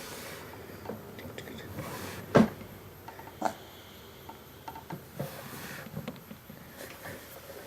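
A few light knocks and rubbing sounds of things being handled, with one sharper knock about two and a half seconds in and a smaller one a second later.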